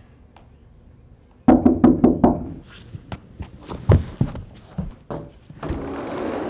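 Rapid knocking on a glass sliding door about one and a half seconds in, followed by scattered thumps and footsteps. Near the end comes a rushing sound as the sliding door is pulled open.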